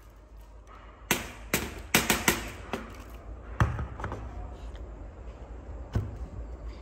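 A 3000 V electric mosquito racket snapping and cracking as sparks arc through a leaf pressed against its grid. There are about eight sharp cracks bunched together, then one more a couple of seconds later.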